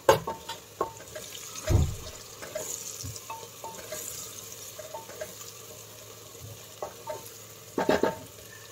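A splash of water in a pressure cooker of hot onions and spices, sizzling, while a wooden spatula stirs and scrapes the masala with scattered knocks against the pot. A louder clatter of the spatula comes near the end.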